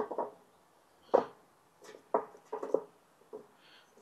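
Jealous Devil Max charcoal briquettes being set down by hand around a burning fire starter in a portable charcoal grill: a string of dull, irregularly spaced clacks and knocks as the lumps touch each other and the firebox, with a quick cluster of them a little past halfway.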